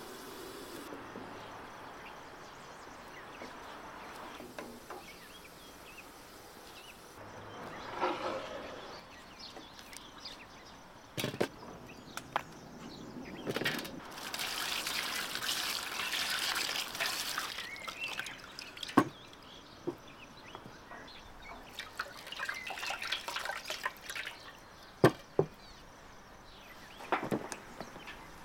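Water poured from a clay jug into a metal basin, splashing steadily for about three seconds midway. Several sharp knocks and handling sounds come before and after it.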